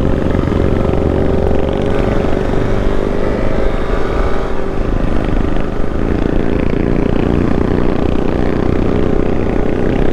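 Motorcycle engine running under way, its note wavering up and down as the bike rides a winding road.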